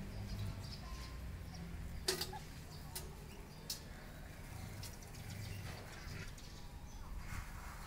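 Quiet yard background: a steady low rumble with a few sharp clicks, about one a second in the middle, and faint bird chirps.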